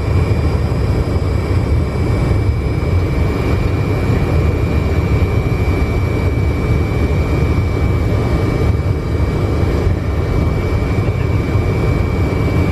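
Steady flight-deck noise of a Fokker 100 airliner on approach: a constant rush of airflow and low engine rumble, with a thin steady whine above it.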